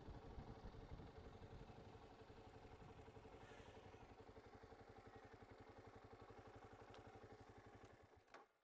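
Motorcycle engine running at low revs with an even pulsing beat as the bike rolls slowly over grass; the engine sound stops about eight seconds in.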